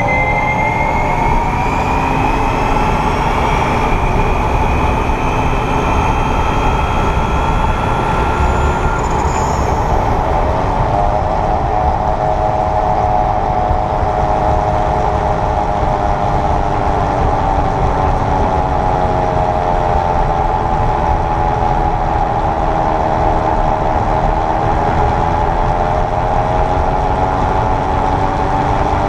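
2022 Kia EV6 electric drivetrain whirring while driving, over road noise: several whining tones climb in pitch over the first few seconds, then settle and drift up and down with speed. The owner traces this buzzing whir to the front drivetrain in Eco mode, where it appears around 28–30 mph.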